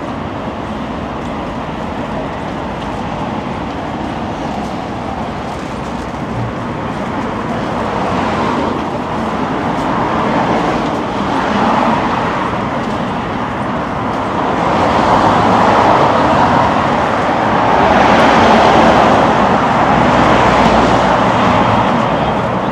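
City street traffic: a steady wash of road noise from cars, growing louder in the second half as vehicles pass close by.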